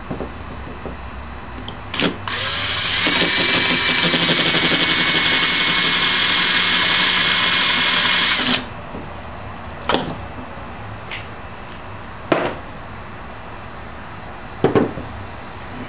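Hand-held power drill with a small bit drilling a hole deeper into a tripod head's base: the motor whines up to speed, runs steadily for about six seconds, then stops suddenly. A few sharp knocks before and after.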